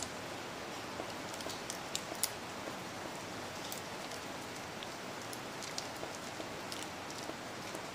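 Plastic sauce sachet crinkling and crackling in the hands as it is squeezed out, with scattered sharp ticks over a steady hiss.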